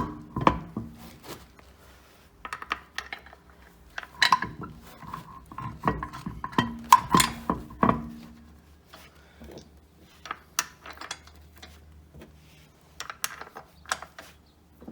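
Metal tools and car parts clanking and clicking during hand work as the front wheel is refitted over the reassembled brake caliper. A dense run of clanks with brief metallic ringing comes in the middle few seconds, followed by lighter, scattered clicks.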